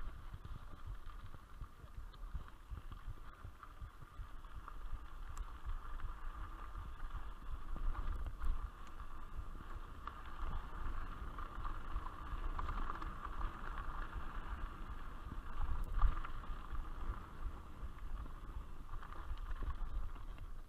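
Mountain bike riding over a dirt track: steady tyre and rattle noise with wind rumbling on the microphone, and a sharper knock about two-thirds of the way through.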